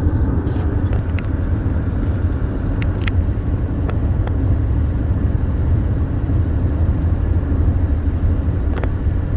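Steady low rumble of a car driving along, with a few faint clicks.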